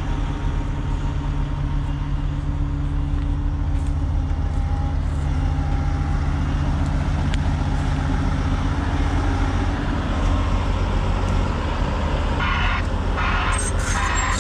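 Heavy machine's diesel engine running steadily with an even low drone, no revving. Music starts about twelve seconds in.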